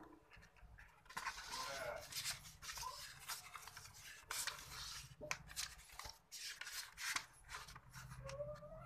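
Irregular rustling and scraping as a sheet of paper is handled and rubbed close to the microphone, in quick uneven strokes.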